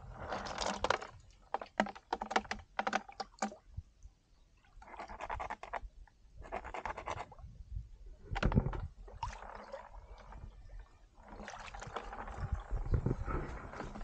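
Splashing and sloshing of shallow muddy water around children wading and groping along the bottom, with a quick run of sharp clicks and knocks in the first few seconds.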